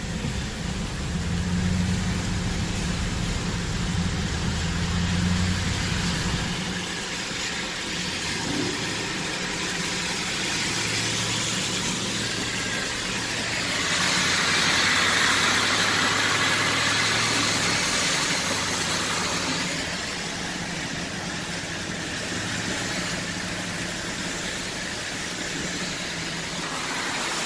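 A car engine running steadily with a low hum, under a constant hiss of wet weather. A louder wash of hiss swells about halfway through and lasts several seconds.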